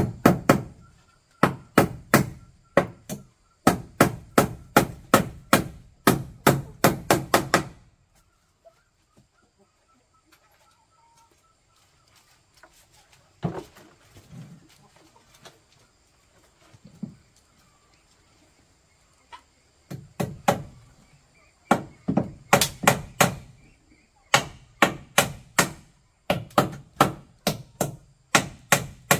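Repeated blows of a hand tool striking wood, about three to four strikes a second in runs of several, with a quiet stretch in the middle broken by a few scattered knocks.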